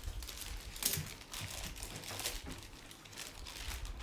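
Packaging crinkling and rustling as something is opened by hand, in irregular crackles, the sharpest about a second in.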